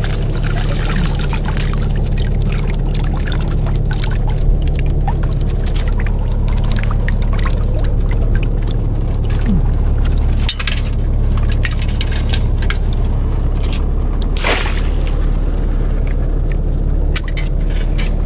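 Water pouring and splashing in irregular bursts, with one louder splash about three-quarters of the way through, over a steady low motor hum.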